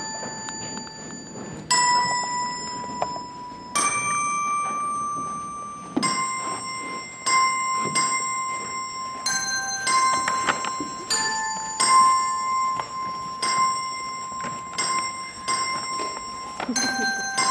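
Bell-like notes struck one at a time in a slow tune, each note ringing on and fading. The notes come every two seconds or so at first and more quickly from about six seconds in.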